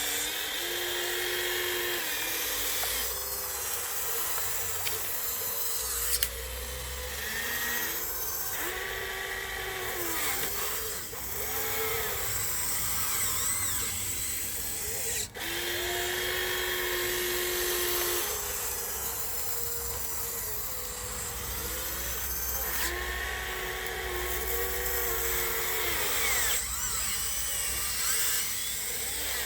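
Electric drive motors and gearboxes of a Huina 1554 radio-controlled bulldozer whining. The pitch rises and falls as the motors start, run and stop in short spells.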